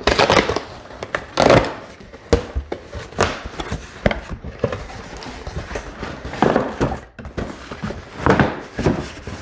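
Cardboard shipping box being torn open by hand: tape and flaps ripping, cardboard rustling, and irregular thunks as the box is handled on the table.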